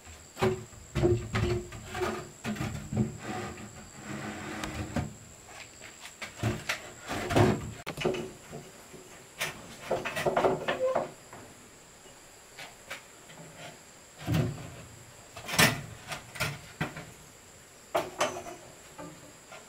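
Irregular wooden knocks, clicks and scrapes of timber being handled and worked by hand, with a few sharper, louder knocks spread through.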